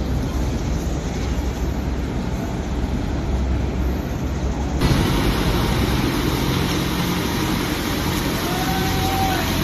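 Motor vehicle engines running through flooded-road traffic, a steady low hum under a noisy wash; about halfway through, the sound becomes louder and brighter.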